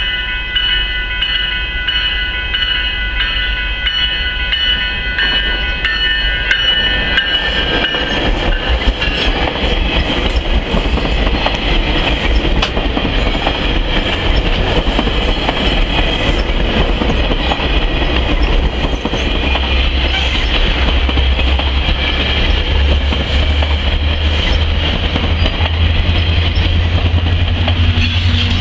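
Commuter train passing over a level crossing. For about the first seven seconds a horn sounds in several steady tones as the train nears. Then the bilevel coaches rumble and clatter past on the rails, and the low hum of the MP40PH-3C diesel locomotive pushing at the rear grows louder in the last third.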